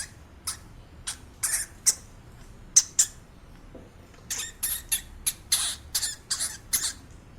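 A small animal making a run of about fifteen short, high-pitched squeaky calls, irregularly spaced and bunching into quick clusters in the second half.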